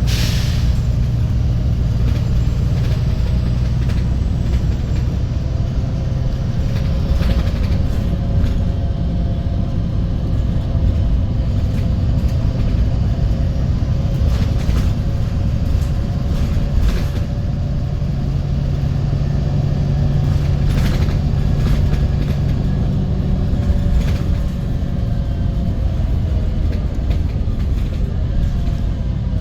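VDL SB200 Wright Pulsar 2 single-deck bus heard from inside the saloon while under way: the engine and driveline drone steadily, with a whine whose pitch drifts slowly up and down with speed. A short hiss comes right at the start, and scattered rattles and knocks run throughout.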